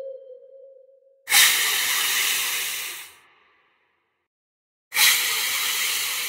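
Two loud hisses, each starting suddenly and fading over about two seconds, the second starting about five seconds in; at the start a held tone from the previous sound dies away.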